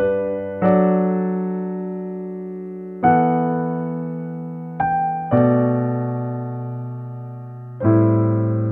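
Slow, gentle piano music: sustained chords struck every two to three seconds, each left to ring and fade away, with a single high note just before the chord about five seconds in.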